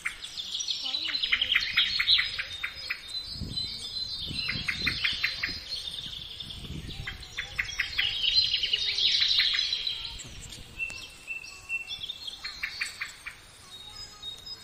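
Birds calling: several bursts of rapid, evenly spaced sharp notes, about ten a second, mixed with thin high whistles. A few low thuds come in about four to seven seconds in.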